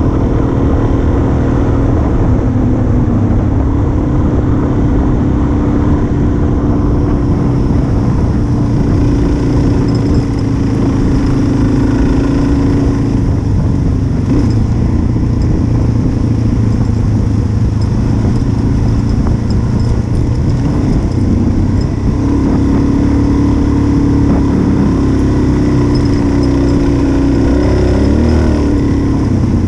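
Single-cylinder dual-sport motorcycle engine running at a steady cruising speed on a gravel road, heard from the bike itself with wind rumble on the microphone; the engine note dips and rises a little about two-thirds of the way through and again near the end.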